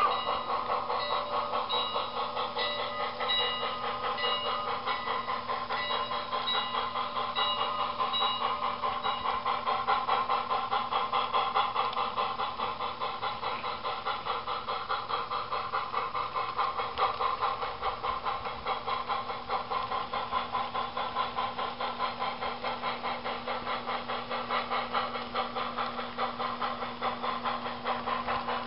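Model steam locomotive running slowly, its sound unit giving an even rhythm of chuffs over a steady low hum.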